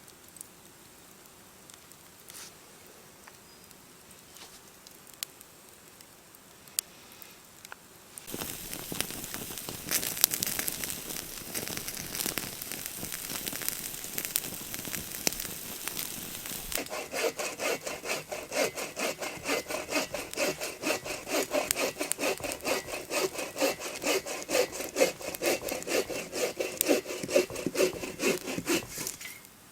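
Wood being sawn by hand: rasping back-and-forth strokes start about eight seconds in and settle into a steady, even rhythm with a ringing note from the blade in the second half. Before that, only a few faint clicks.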